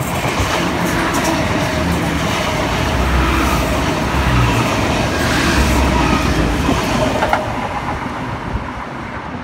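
NSW TrainLink Xplorer diesel multiple unit running through the station without stopping: diesel engine hum and wheel-on-rail noise, loudest mid-pass, with a few sharp wheel clicks about seven seconds in, then fading as the train draws away.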